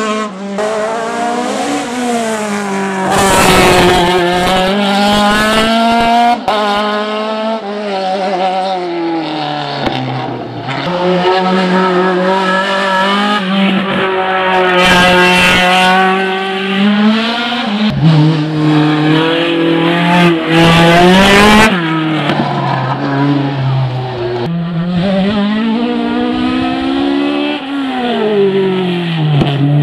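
Ford Escort Mk2's naturally aspirated Millington race engine running hard, its note rising and falling repeatedly, with a few sudden drops in pitch as the driver lifts off or changes gear.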